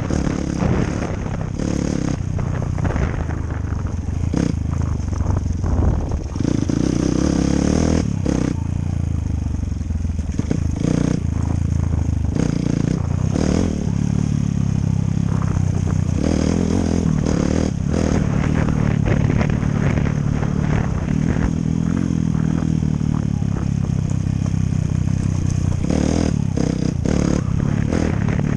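Dirt bike engine running, its pitch rising and falling with the throttle, with frequent knocks and rattles.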